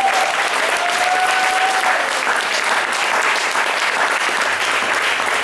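Audience applauding steadily after a song, a dense even clatter of clapping hands.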